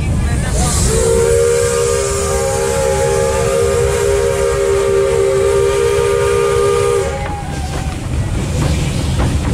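Steam whistle of the 1949 Chrzanów-built narrow-gauge steam locomotive 764052 blowing one long blast of about six seconds. It is a chord of several steady tones with steam hiss, starting about a second in and cutting off sharply. Underneath runs the steady low rumble of the moving train.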